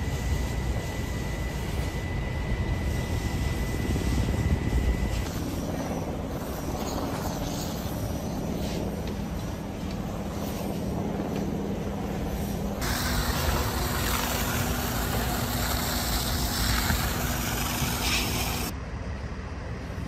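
Fire-scene sound over several cuts: engines running steadily under a rushing hiss from a fire hose spraying water. A thin, steady high whine runs for the first five seconds.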